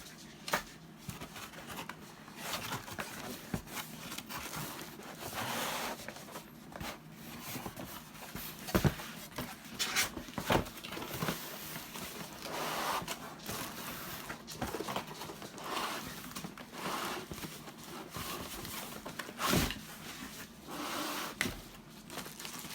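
Blender packaging and paper inserts being handled by hand, with intermittent rustling and crinkling. A few sharp knocks come through, the loudest about nine seconds in and again near twenty seconds.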